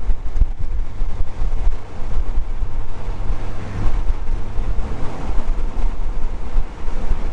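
C5 Corvette being driven: a steady low rumble of engine and road noise, with wind buffeting the microphone.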